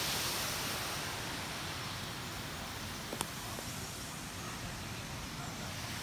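Steady rush of falling water from a waterfall, easing slightly after the first second, with a single sharp click about three seconds in.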